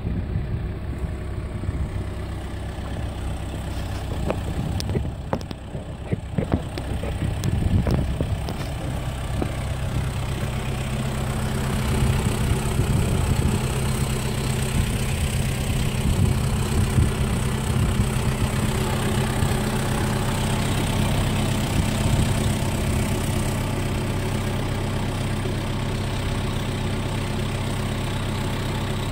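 Kubota M7060 tractor's four-cylinder diesel engine idling steadily. There are a few irregular knocks in the first several seconds.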